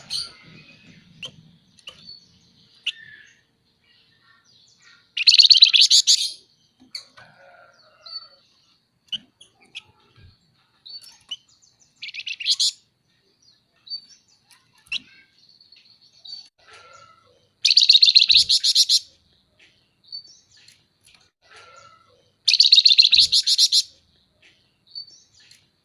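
Flamboyan (Javan fulvetta, wergan jawa) chattering: four loud, fast rattling trills of about a second each. Short chirps and thin high whistles come between them.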